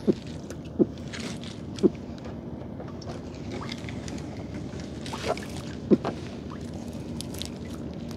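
Gillnet rustling as it is hauled in and worked over a boat's bow, with a few sharp low thumps: three in the first two seconds and a close pair about six seconds in.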